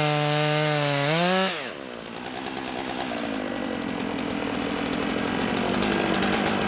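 Stihl MS 661 C two-stroke chainsaw cutting through a large oak log under load, its pitch wavering slightly, rising briefly about a second and a half in, then falling away. After that a quieter, steady engine hum continues, slowly getting louder.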